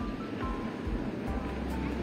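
Music: a melody of short, high single notes over a steady rushing noise, with a low rumble joining in partway through.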